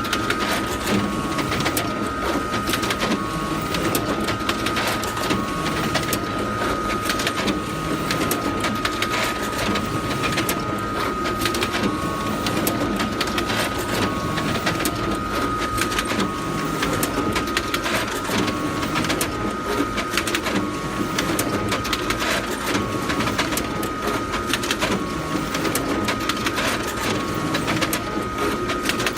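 Photocopier running continuously: a steady mechanical whir with a constant high whine and fast clicking, plus a short blip repeating at an even pace.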